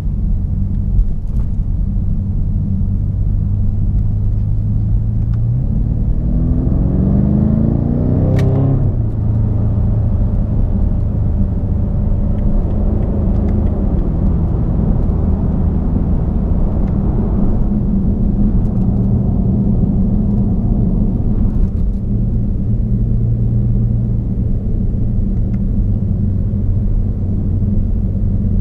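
BMW F90 M5's twin-turbo V8 through a Capristo valved exhaust with the valves held open, cruising with a steady low drone. About six seconds in the engine pulls and its pitch climbs for a few seconds, ends in a single sharp crack, and drops back to a steady cruise.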